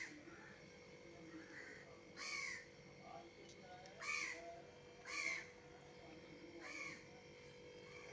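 Crows cawing: four harsh caws a second or two apart, over a faint steady hum.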